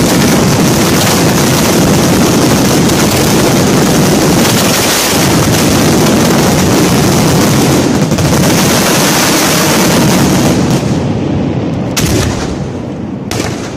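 Fireworks firing at close range: a dense, continuous barrage of bangs and blasts. It thins out about eleven seconds in, leaving two separate loud bangs near the end.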